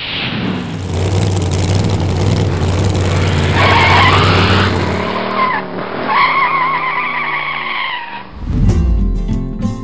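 Car engine running hard with tyres squealing, a wavering screech about four seconds in and another about six seconds in. Guitar music starts near the end.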